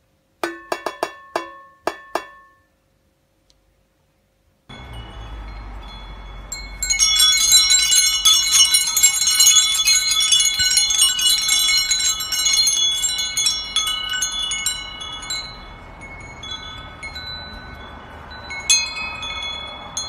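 A sulphur-crested cockatoo knocking on a metal pot: a quick run of ringing metallic taps in the first two seconds. After a short pause, a set of wind chimes jangles hard as a cockatoo bats at the hanging tubes, fades, and is struck again near the end, over a low hum.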